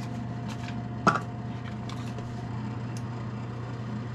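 Steady low electrical hum of an induction hob heating a pot, with one short click about a second in.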